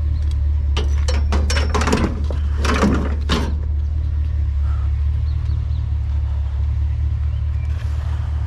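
Steady low rumble of an idling vehicle engine, with a run of metallic clanks and rattles about one to three and a half seconds in as heavy scrap is handled and loaded.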